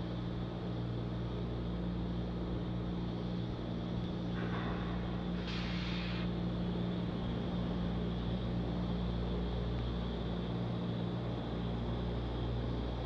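Steady low hum of the launch pad's ground equipment, with several steady low tones, around a fuelled Falcon 9 venting oxygen vapour. Two short hisses come about four and a half and five and a half seconds in.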